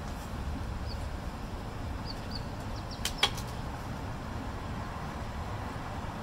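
Steady low background rumble, with a few faint short high chirps and two sharp clicks about three seconds in.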